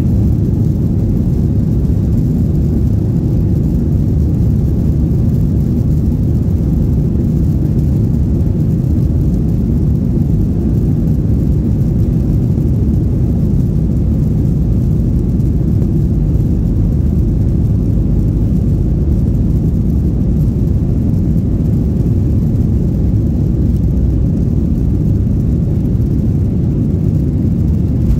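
Steady low rumble inside the cabin of an Airbus A320 rolling along the runway: engine noise and the running of the wheels.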